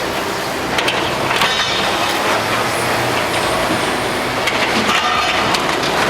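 Building demolition: heavy machinery crushing and breaking up the structure, a continuous grinding, scraping noise with several sharp cracks in the first half.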